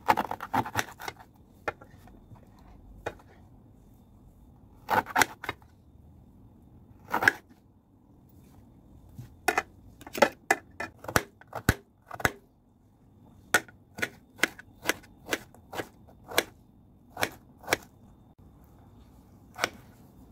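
Kitchen knife cutting banana stem on a plate: sharp clicks of the blade striking the plate through the stem. A few quick clusters of cuts come first, then from a little past the middle a steady run of about two chops a second as the slices are diced.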